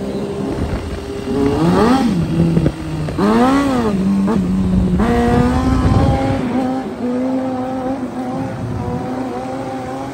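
Motorcycle engine revved twice, its pitch rising and falling each time, then running steadily at higher revs.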